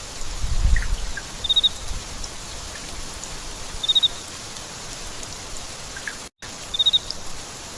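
Steady rain falling, with a faint high chirp of three or four quick notes repeating about every two and a half seconds and a low rumble about a second in.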